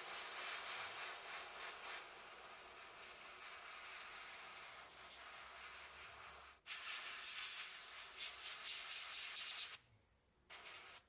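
Airbrush spraying paint: a steady hiss of air and paint that breaks off for a moment about two-thirds through, then comes back uneven and pulsing before stopping, followed by one short last burst near the end.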